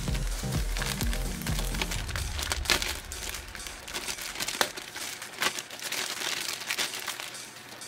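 Clear plastic bag crinkling as it is handled around model-kit sprues, with many short crackles, over background music.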